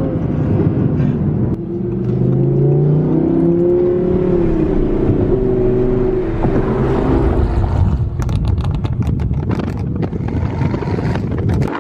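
Sports car engine pulling hard under acceleration, its pitch climbing and then holding, heard from inside a moving car. Over the last few seconds there is a rapid run of sharp cracks.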